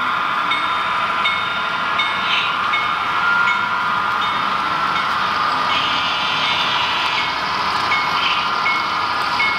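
HO-scale model trains running, with a steady high whine and a sound-equipped locomotive's bell ringing over and over, about once every two-thirds of a second.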